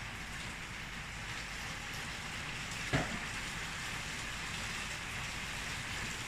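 Steady heavy rain falling, with a single knock about three seconds in.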